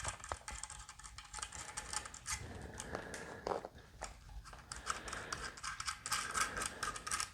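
Small irregular clicks and scratching from hand work on Gibson tuner hardware as the tuners are being taken off the headstock.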